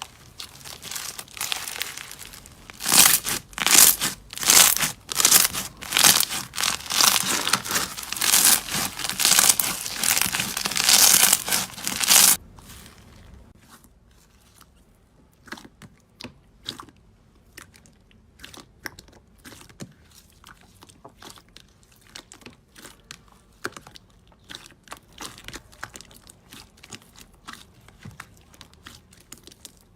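Slime being squeezed and pressed by hand, with dense crackling and crunching for about twelve seconds. It then cuts abruptly to much quieter, sparse clicks and pops of slime being worked.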